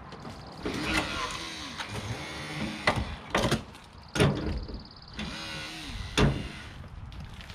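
Car body being worked apart with extrication tools: several sharp cracks and metal creaking, with a steady high-pitched whine in two stretches.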